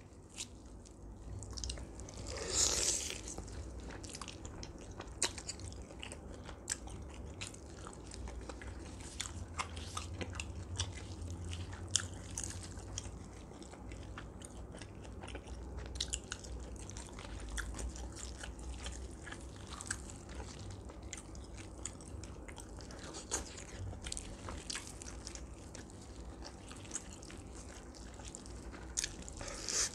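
Close-miked chewing and biting of roast duck, with crisp skin crunching as many small clicks and a louder crunch about three seconds in.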